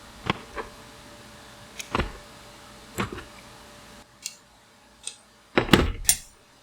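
Bicycle parts and tools being handled during disassembly: a series of sharp knocks and clicks about a second apart, with a louder clatter of several knocks near the end.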